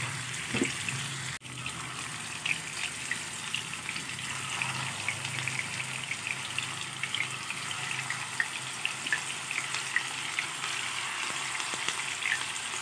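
Chicken seekh kababs shallow-frying in hot oil in a pan: a steady sizzle with many small pops and crackles.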